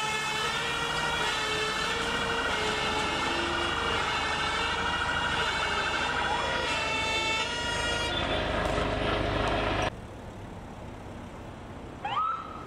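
Several emergency-vehicle sirens sound at once, with stepping two-tone notes overlapping a fast warbling yelp. The sound stops abruptly about ten seconds in. Near the end a single short siren whoop rises in pitch over quiet traffic noise.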